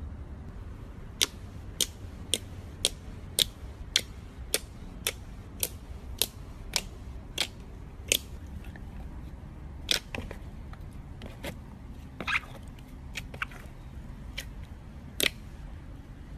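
Slime being pressed and played with, giving sharp, separate pops, about two a second at first, then fewer and more irregular.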